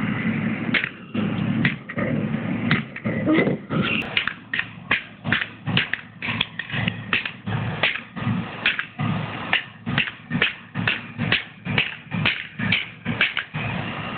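Small LCD alarm clock being bashed with a hand tool: a long run of sharp blows, a few at first, then rapid and steady at about two to three a second from about four seconds in.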